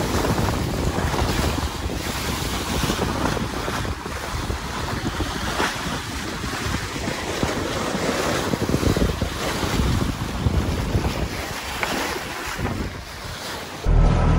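Water rushing along the hull of a sailing yacht under way, with wind buffeting the microphone. A louder low rumble sets in suddenly just before the end.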